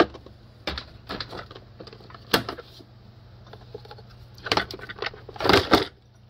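Knocks and clunks of a car's air intake assembly being dropped into the engine bay and worked onto its locating pins, a scattering of short sharp knocks with the loudest cluster near the end, over a low steady hum.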